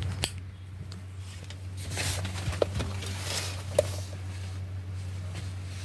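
Hands working on a power cord and plug: a few sharp clicks, about three in all, and soft rustling over a steady low hum.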